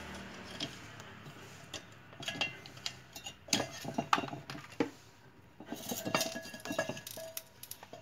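Metallic clinks, taps and scrapes of a screwdriver and loose metal parts on an opened refrigerator compressor, as its motor-and-pump block is worked free of the steel shell and lifted out. The knocks come in two clusters, the loudest about halfway through.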